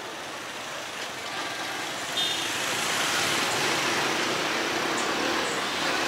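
Motorbike riding through town traffic: steady engine, tyre and air noise that grows louder about two seconds in, with a short high-pitched beep at about the same moment.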